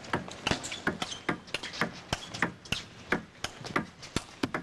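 Table tennis ball hit back and forth in a fast topspin-to-topspin rally: sharp clicks of the ball on the rackets and on the table, about three or four a second.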